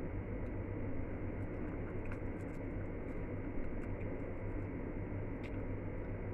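Crispy fried chicken being torn apart by hand and chewed, heard as faint scattered crackles and clicks over a steady low hum.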